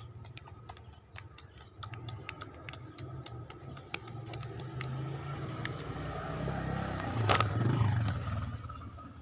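Scattered small clicks and taps, then a low rumble that swells and fades, with a loud knock and rustle as the phone is picked up off the concrete just past seven seconds in.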